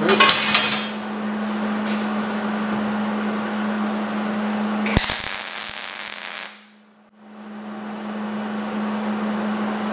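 A steel rod clanks on a steel welding table right at the start. About five seconds in, a MIG welder crackles for about a second and a half as a tack weld is laid at the foot of a steel post, then stops abruptly.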